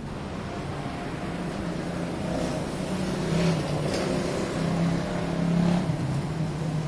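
Motor vehicle running, with a steady low drone whose pitch shifts, swelling louder between about two and six seconds in.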